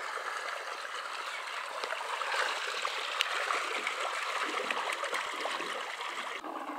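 Water pouring and splashing through a mesh net onto a stone in a muddy ditch outlet, a steady rush of running water.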